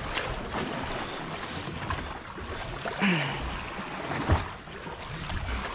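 Wind buffeting the microphone and sea water slapping against the hull of a drifting fishing boat, with a sharp knock just after four seconds.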